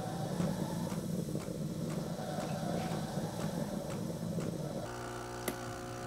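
Lavazza Classy Plus capsule machine frothing milk in the mug: a steady whir with a light tick about twice a second as the machine pulses. Near the end it switches to a steady hum, with a single click, as the espresso stage begins.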